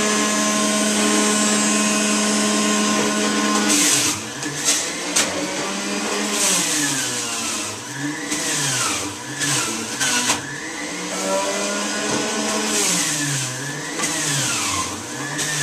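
Electric centrifugal juicer motor running with a steady high pitch. About four seconds in, as apple and orange are pushed down the feed chute and shredded, it labours: its pitch wavers, dipping and recovering again and again under the load.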